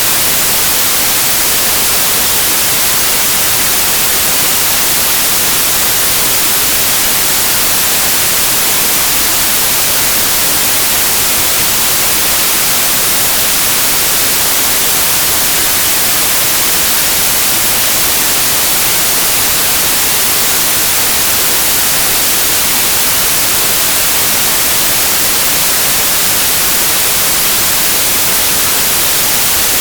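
Steady white noise: a loud, even hiss, brightest in the treble, unchanging throughout.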